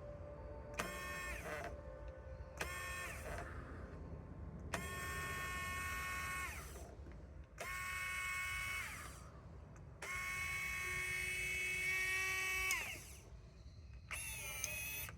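Electric linear actuator motor whining in six separate runs of about one to three seconds, each switched on and off abruptly and dropping in pitch as it stops. It is driving the lift of a home-built table saw.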